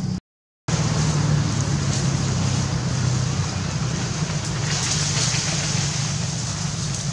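Steady low mechanical hum with a hiss over it, dropping out to total silence for about half a second near the start.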